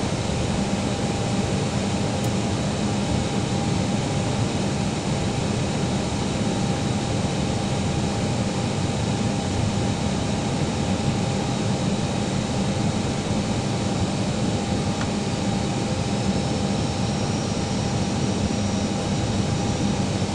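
Steady cabin noise inside an Airbus airliner on approach: an even rush of airflow and jet-engine drone with a faint constant whine.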